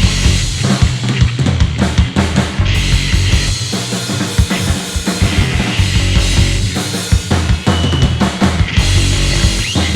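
Live rock band playing an instrumental passage: electric guitar, bass guitar and drum kit, with busy kick and snare hits under a steady bass line.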